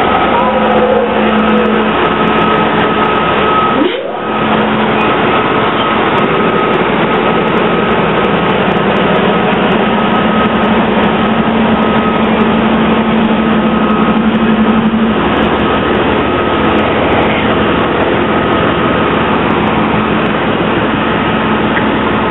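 Amtrak GE Genesis diesel locomotive standing with its engine running: a loud, steady mechanical rumble with a steady whine on top, dipping briefly about four seconds in.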